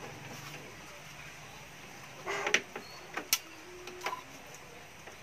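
Handling noises from a horn tweeter pulled out of a speaker cabinet: a short scrape about two seconds in, then a few sharp clicks and knocks as it is held and turned.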